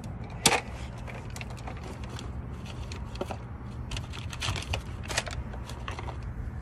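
Scattered light clicks and taps over a steady low hum, with one sharper click about half a second in.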